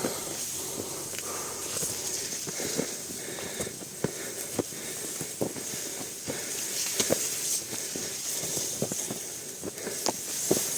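Footsteps on a dirt slope, irregular knocks and scuffs one or two a second, over a steady high hiss.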